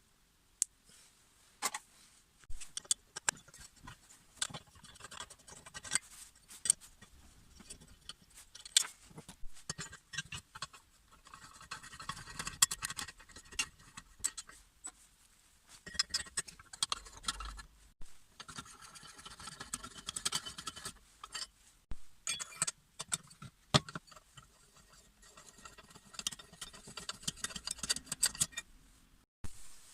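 Hand tools and small metal parts being handled on a workbench: irregular clicks and knocks, with three stretches of scraping.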